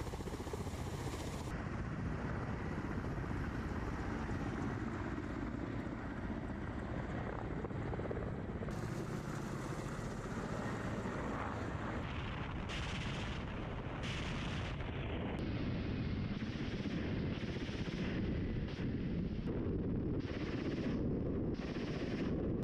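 Ka-52 attack helicopter running steadily, a dense rotor and engine noise. From about halfway through, several short bursts of gunfire, each under a second, break in.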